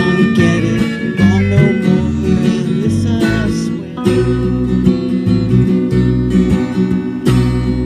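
Live band music with no vocals: guitar playing over bass and drums.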